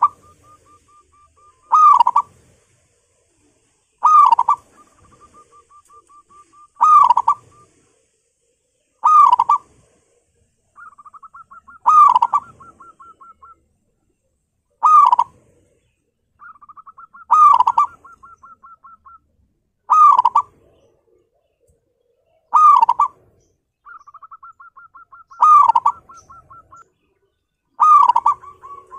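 Zebra dove (perkutut) cooing: a loud, short coo phrase about every two and a half seconds, with soft, rapid stuttering notes between the phrases.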